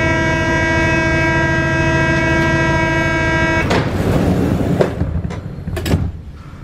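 Paris Métro train's door-closing warning buzzer, one steady buzzing tone that cuts off after about three and a half seconds. The sliding doors then close, with a sharp clunk near the end.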